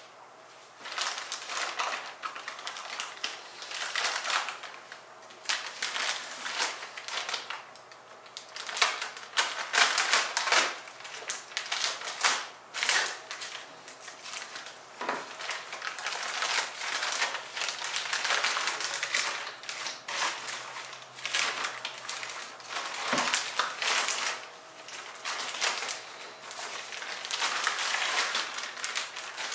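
Clear plastic packaging bag crinkling and rustling in irregular bursts as a hand plane is worked out of its sealed wrapping. One dull knock about three quarters of the way through.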